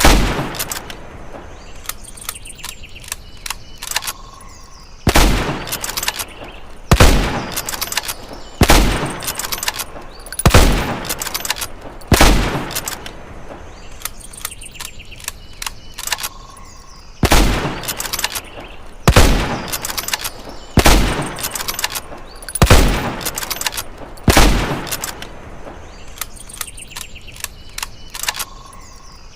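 Springfield rifle firing in strings of five shots about two seconds apart, each string followed by a pause of a few seconds with faint metallic clicks before the next string.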